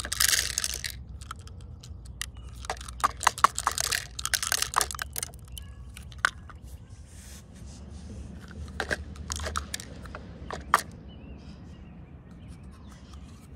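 Plastic clicks, knocks and rattling from a toy garbage truck's lifting arm and a small plastic toy bin being handled. There is a sharp clack at the start, a dense run of clicking a few seconds in, and scattered knocks later, with a single sharp click about three-quarters of the way through.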